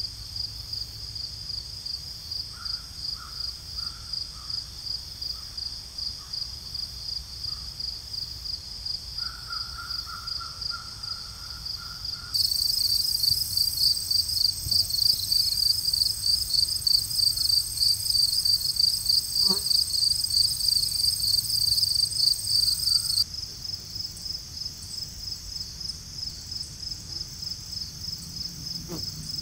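Outdoor insect chorus, crickets chirping steadily in a high pulsing trill, a few pulses a second. About twelve seconds in it turns abruptly louder with a higher buzzing layer added, and it drops back just as abruptly about eleven seconds later. A few faint distant calls sound in the first half, and there is a single click about twenty seconds in.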